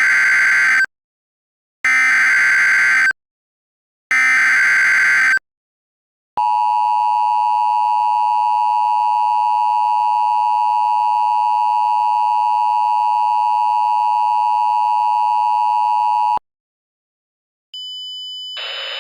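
Emergency Alert System tones: three short bursts of SAME header data, each about a second long, which encode the alert that follows, a flash flood warning. Then the two-tone EAS attention signal sounds as a steady harsh dual tone for about ten seconds and cuts off sharply. Near the end a quieter steady high tone with hiss comes in.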